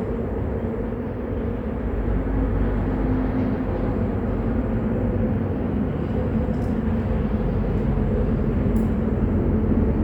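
Steady low background noise with a faint hum running under it, and a couple of faint clicks about six and a half and nine seconds in.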